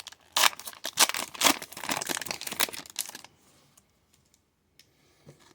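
Foil wrapper of a hockey card pack being torn open and crinkled, a dense crackle for about three seconds that stops abruptly, followed by a few faint ticks.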